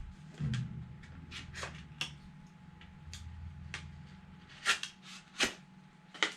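A small metal lockback utility knife being handled and tried out: a series of light clicks and scrapes, with two louder sharp ones near the end.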